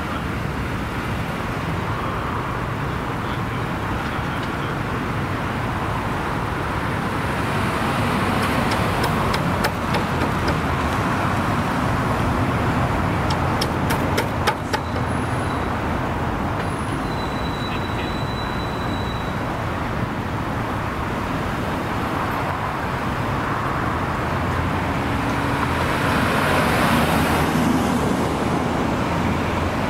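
Road traffic running steadily, swelling near the end as a vehicle passes close by. A few sharp clicks come about halfway through.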